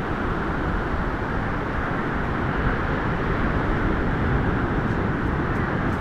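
Steady rushing noise of wind and sea on an open coastline, heaviest in the low end and without a clear rhythm or pitch.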